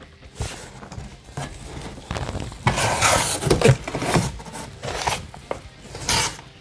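Packing paper rustling and crinkling against the cardboard as hands rummage in a shipping box and pull the paper out, in uneven bursts that are loudest about halfway through.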